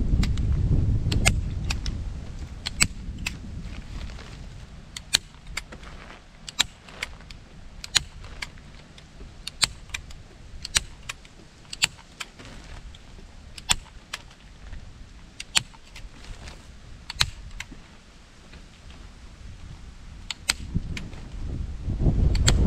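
Hand staple gun firing staples through a plastic tarp into the wooden frame beneath: sharp metallic clacks, often two close together, roughly one every second, with a low rumble at the start and near the end.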